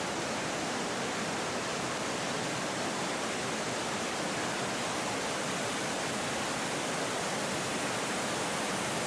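Steady, even rush of running creek water.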